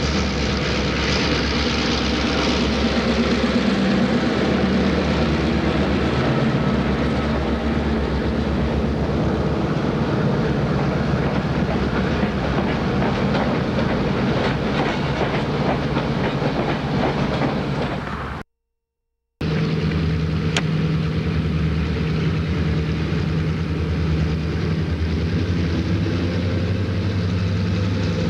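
Ex-CNJ EMD F7 diesel locomotives running past close by, followed by their passenger coaches rolling past. The sound cuts out abruptly about two-thirds of the way in, then returns as the steady low drone of the locomotives' diesel engines approaching from a distance.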